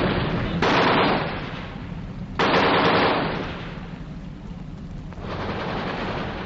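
Machine-gun fire in a 1944 field recording of street fighting: bursts of about a second each, starting sharply and dying away. One burst comes about half a second in, a louder one about two and a half seconds in, and a fainter one just after five seconds.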